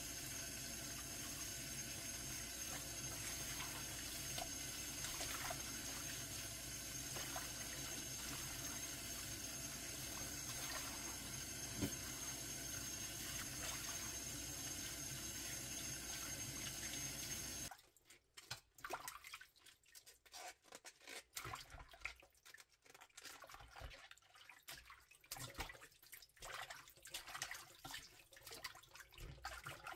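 Kitchen pull-out faucet running steadily onto lettuce leaves in a bowl in a stainless steel sink. A little over halfway through the water stops, and after that come irregular splashes and drips as the wet leaves are swished and lifted by hand.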